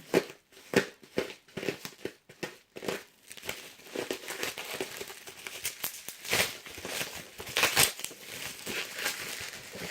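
Bubble wrap crinkling and rustling as it is handled and unwrapped, in irregular crackles that come thicker after about three seconds.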